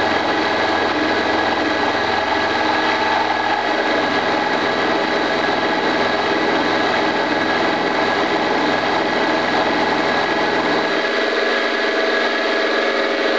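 Old Craftsman drill press, converted for milling, running with a 3/16-inch end mill cutting a keyway in 3/4-inch cold-rolled steel: a steady machine whine made of many pitched tones. About eleven seconds in the low hum drops away while the higher whine runs on.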